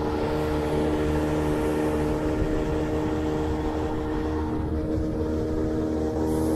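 Small outboard motor running steadily at a constant high speed, pushing an inflatable boat loaded with four people, with water rushing along the hull.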